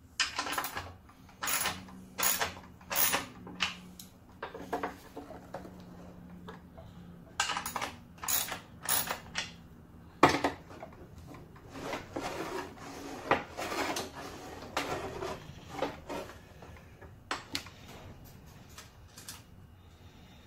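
Delta 10-inch compound miter saw's head being worked up and down on its pivot by hand, giving an irregular run of metal-and-plastic clunks, clicks and rattles from the arm, pivot and blade guard. The pivot tension is being set so the arm has no excess play but still moves freely. One sharp click about halfway through is the loudest.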